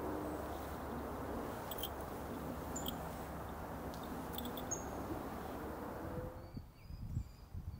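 Steady low outdoor background rumble with a few short, high chirps scattered through it. About six and a half seconds in it drops away, leaving only faint high chirps.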